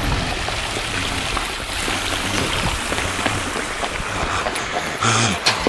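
Steady rush of running, splashing water with many small ticks, and a louder burst near the end.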